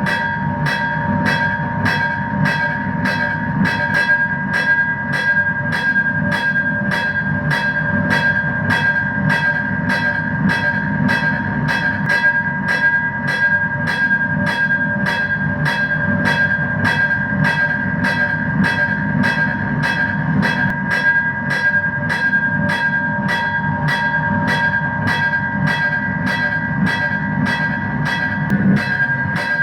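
Railroad crossing signal bell ringing steadily, about two strokes a second, over a constant low rumble.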